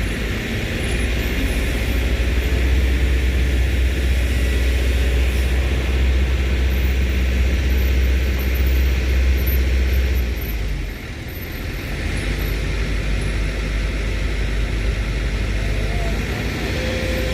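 Heavy truck engine running steadily with a deep low drone, its level dipping briefly about eleven seconds in.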